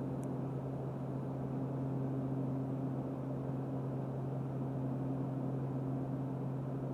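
Steady cabin drone of a Beechcraft King Air's twin turboprops heard from the cockpit, with the propellers at maximum RPM on the approach: an even low hum with a fainter overtone over a wash of engine and airflow noise.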